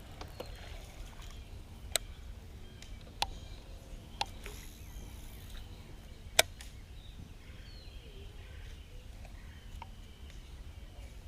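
Four sharp clicks spread over a few seconds, the last one loudest, over a faint low rumble and faint bird chirps.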